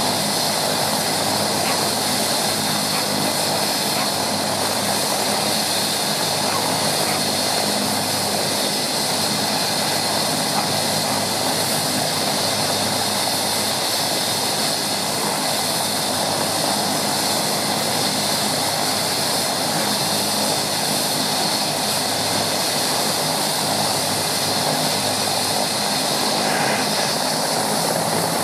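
Bell 427 helicopter's twin turboshaft engines and main rotor running steadily on the ground before takeoff: a continuous turbine whine over rotor noise, with no change in pitch or level.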